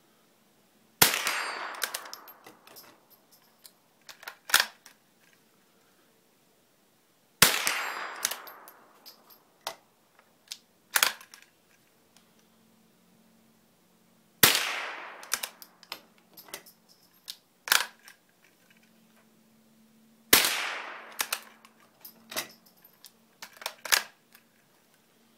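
Marlin Model 122 single-shot bolt-action .22 rifle firing four shots about six seconds apart, each a sharp crack with a short echoing tail. Quieter sharp clicks come between the shots.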